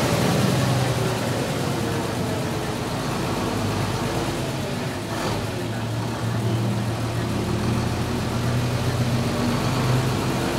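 Motor vehicle engines running at low speed on a flooded road, a steady low hum whose pitch drifts slowly up and down.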